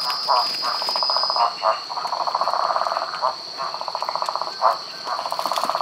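Frogs calling at a night-time stream: trains of rapid croaking pulses, each about half a second to a second long, one after another, over a steady high-pitched drone.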